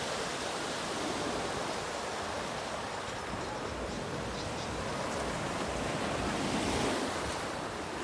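Small Mediterranean waves breaking and washing onto a pebble beach: a steady wash of surf that swells a little about two-thirds of the way through.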